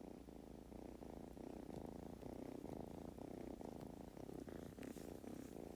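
Kitten purring steadily, a continuous rapid rumbling pulse, with a few faint clicks near the end.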